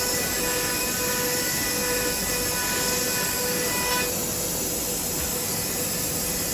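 Wood CNC router cutting MDF: a steady spindle whine over a constant hiss of cutting. A set of steady tones drops out about four seconds in.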